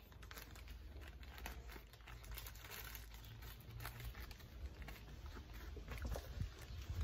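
Plastic zip-lock bags of loose tobacco rustling and crinkling faintly as they are handled, with many small rustles and clicks throughout.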